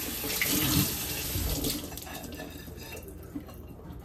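Kitchen faucet running water into the sink, which fades out about two seconds in, leaving a faint tap or click of handling near the end.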